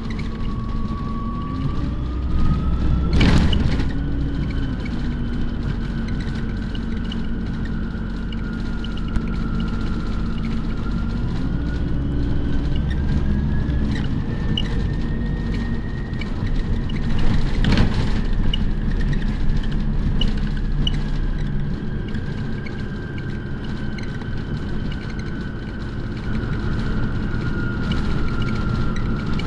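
City bus riding along, heard from inside: a steady low rumble with a drive whine that slowly rises and falls in pitch as the bus speeds up and slows. Two sharp knocks stand out, one a few seconds in and one past the middle.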